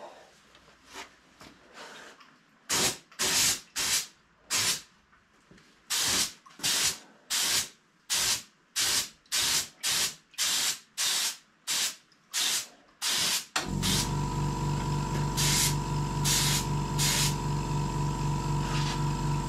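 Compressed-air paint spray gun fired in a quick run of short bursts of spray, about two a second. About fourteen seconds in, an air compressor starts and runs steadily with a low hum and a steady high whine, under a few last bursts from the gun.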